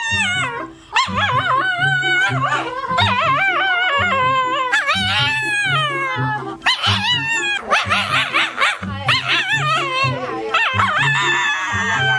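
A dog howling and crying in long, wavering, high-pitched wails, one after another, over background music with a steady beat.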